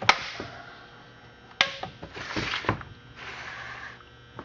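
Stihl 021 chainsaw's chain brake being snapped on and released: two sharp plastic-and-metal clacks about a second and a half apart, with softer handling noise after them.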